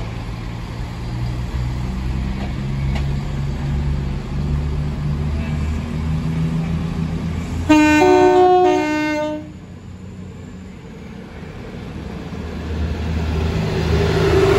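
Avanti West Coast Class 221 Super Voyager diesel train sounding its two-tone horn, low-high-low for about a second and a half, over a steady diesel engine rumble as it approaches. Near the end the rumble and wheel noise build as the train runs past.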